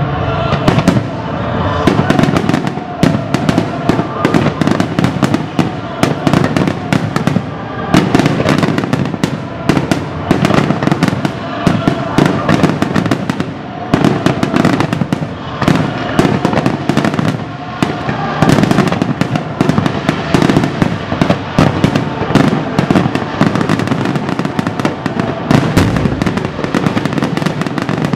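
Fireworks display: aerial shells bursting in a rapid, continuous barrage, many reports a second, with crackling between them.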